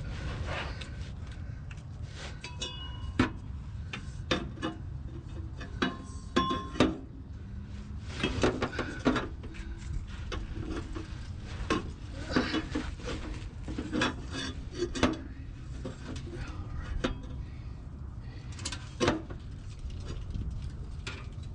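Scattered metallic clinks, knocks and scrapes of tools and parts being handled, irregular and a few a second at most, over a low steady hum.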